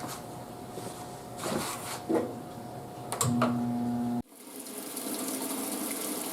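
Top-load washing machine starting its fill: a machine hum with a few knocks and clicks, then an abrupt change about four seconds in to a steady rush of water running into the tub.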